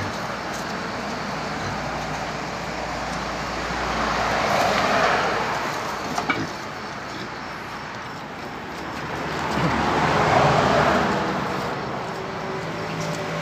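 Two vehicles passing by on a road, one after the other; each swells up and fades away, with a couple of sharp clicks about six seconds in.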